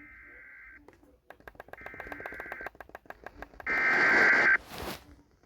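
Emergency Alert System SAME header: three short, harsh digital data bursts, each just under a second and about a second apart, the third the loudest, with rapid clicking between the bursts and a brief burst of static near the end. This coded header opens a new alert message.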